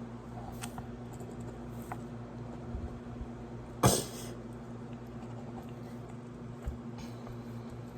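Washing machine running with a steady low hum, a few faint small clicks, and one short, loud noise about four seconds in.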